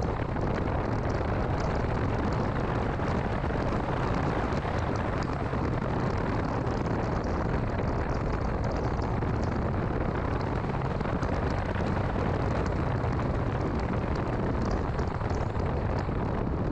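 A 2006 Mini Cooper S on the move: steady engine and road noise with a low rumble and scattered faint ticks.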